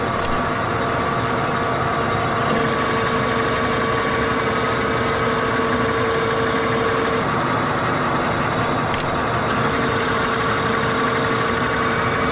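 Old turret lathe running and taking a roughing cut on a spindle: a steady machine sound with a whining tone that drops away about seven seconds in and comes back about two seconds later.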